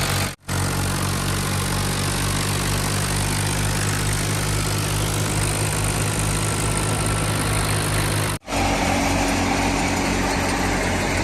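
Fiat 480 tractor's diesel engine running steadily under load as it drives a wheat thresher, with the thresher's dense rushing noise over it. The sound cuts out abruptly twice, about half a second in and again near the end, and after the second gap the engine note changes.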